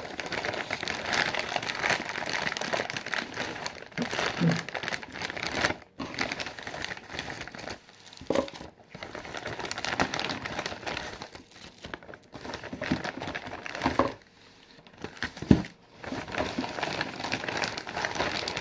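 A package being opened by hand: packaging crinkling and rustling in short spells with brief pauses, and a sharp knock about 15 seconds in.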